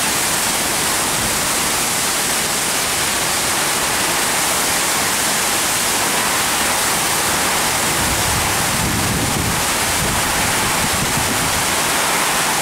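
Torrential storm rain pouring down as a loud, steady hiss. Gusts of wind add a low rumble about eight seconds in and again near the end.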